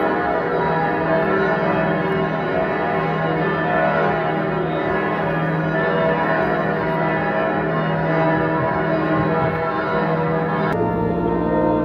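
Church bells pealing, many bells ringing over one another in a continuous peal. Near the end it cuts off abruptly and an organ comes in with held chords.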